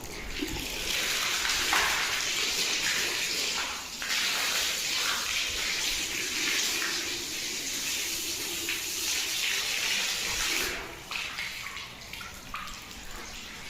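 Water running and splashing as a steady hiss for about ten seconds, then dropping away sharply about eleven seconds in, with fainter, scattered sounds after.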